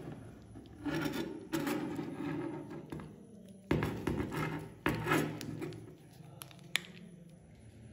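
Handling noise from a bare die-cast model car body in gloved hands: a few knocks followed by scraping and rubbing as the metal shell is turned and set against the table, with a sharp click near the end.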